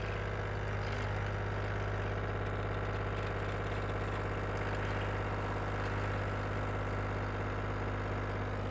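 Nescafé Dolce Gusto capsule coffee machine brewing, its pump giving a steady, even buzz as it pushes hot water through the cappuccino milk capsule.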